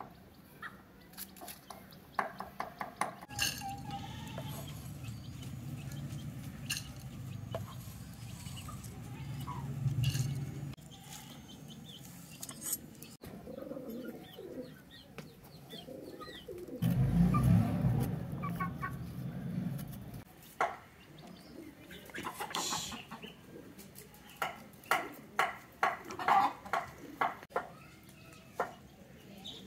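Domestic pigeons and other yard fowl calling, with a quick run of short sharp knocks near the end.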